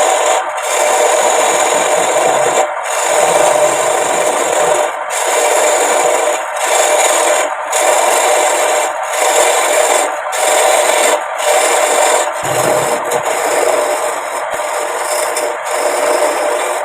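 A tool scraping and abrading wood in long, even strokes, with a short break about once a second as each stroke turns.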